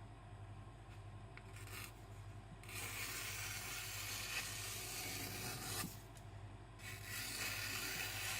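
Knife blade drawn along a wet Kitayama 4000 finishing whetstone: two long rubbing strokes of about three seconds each, starting about three and seven seconds in, with a short pause between them.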